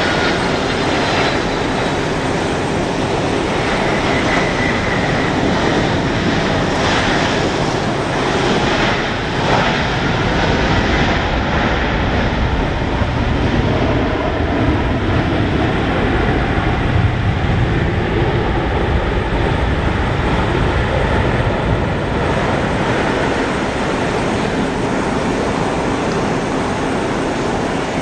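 Boeing 767-300 freighter's jet engines during touchdown and landing rollout: a loud, steady rushing roar. A low rumble grows stronger in the middle as the jet slows down the runway.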